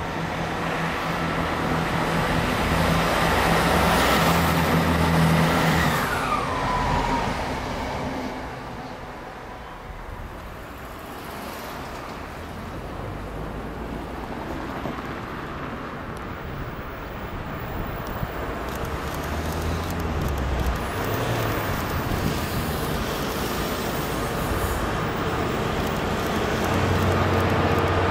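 A diesel multiple unit passes beneath, its engine drone rising to a peak and then dropping in pitch as it goes by. After a quieter stretch of road traffic, a Class 66 diesel locomotive's two-stroke V12 grows louder as it approaches hauling a loaded stone train.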